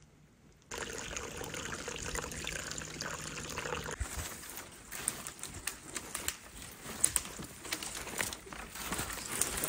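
A standing dead tree being worked back and forth by hand to break it down: from about four seconds in, repeated sharp cracks and snaps of dry wood and twigs, after a few seconds of steady hiss.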